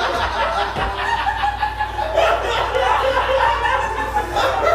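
Audience laughing and chuckling, with many voices overlapping and a squawky, cackling edge.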